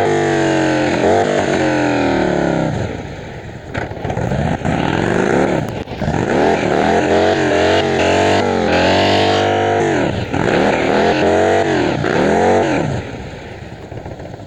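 Harley-Davidson motorcycle's V-twin engine being revved again and again, its pitch rising and falling with each blip of the throttle, then dropping back toward idle near the end.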